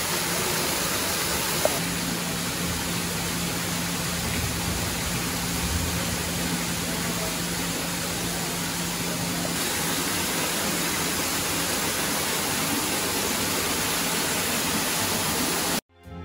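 Steady, loud rushing noise with no distinct events, cutting off abruptly near the end.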